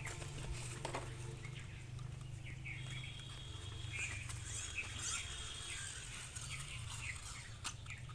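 Birds chirping in many short calls over a steady low hum.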